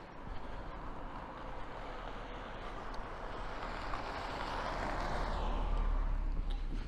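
A vehicle passing close by. Its tyre and engine noise builds steadily to a peak about five to six seconds in, then fades.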